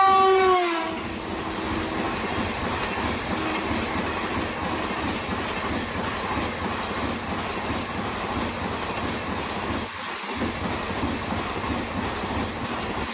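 A WAP-5 electric locomotive's horn sounds as it passes, its pitch dropping and cutting off about a second in. Then the steady rumble and clickety-clack of LHB passenger coaches rushing past at high speed.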